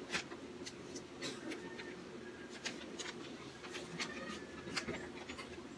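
Gloved hands handling a paper drape and a towel: scattered short rustles and light clicks, over a faint steady hum.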